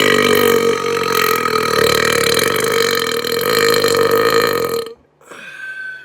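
A long, loud burp held at a steady pitch for about five seconds, cutting off suddenly. A brief, quieter sound follows near the end.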